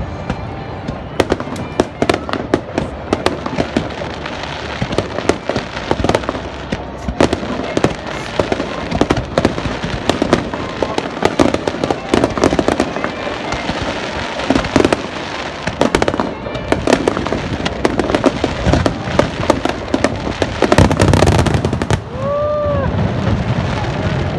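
Fireworks display: aerial shells bursting in rapid succession, a dense stream of bangs and crackles, at its heaviest a few seconds before the end.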